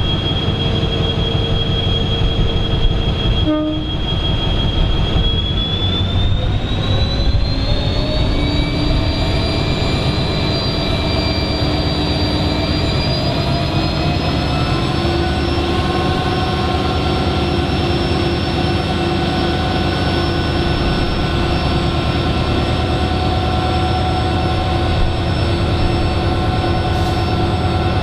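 EMD GT46MAC (WDG4) diesel locomotive's turbocharged 16-cylinder two-stroke engine notching up: a heavy steady rumble with a high turbocharger whine that rises in pitch in two steps, about six seconds in and again about thirteen seconds in, then holds steady.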